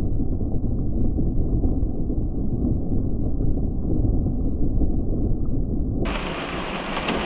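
Thunder rumbling on continuously after a clap, a deep, rough roll that eases slightly near the end.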